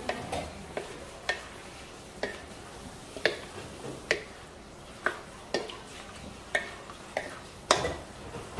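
Wooden spatula stirring sausages and vegetables in a wok, knocking against the pan about once or twice a second, with the loudest knock near the end.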